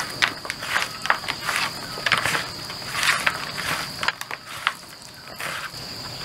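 Bare hands squishing and mixing minced raw chicken on a woven bamboo tray, in repeated irregular wet rustling strokes with small clicks as the meat scrapes the weave.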